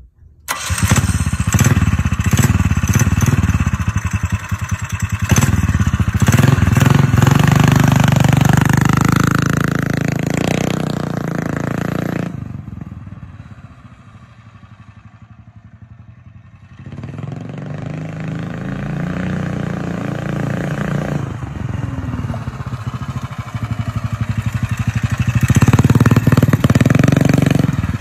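Small gas engine of a drift trike running hard. It comes in suddenly, rises in pitch as it revs and accelerates, fades as the trike rides away, then grows loud again as it comes back.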